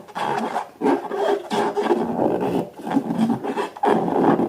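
Rubber balloons being rubbed, giving a run of irregular squeaking, rasping strokes.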